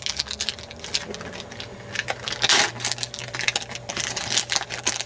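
A baseball card pack being torn open and its wrapper and cards handled: a quick run of small crackles and clicks, with a longer rustle about two and a half seconds in.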